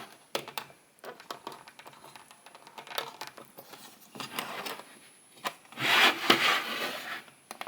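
Plastic figure parts handled and pushed together by hand: scattered light clicks and taps, with a louder stretch of rubbing and scraping about six seconds in.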